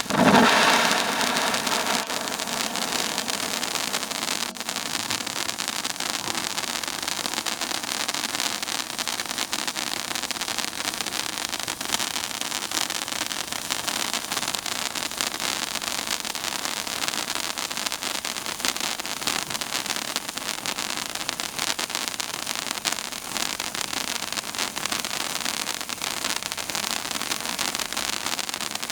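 Super Silver Waterfall firework fountain, a 49 g silver-star cascade, flaring up loudly as it catches. It then burns with a steady, even hiss full of fine crackle.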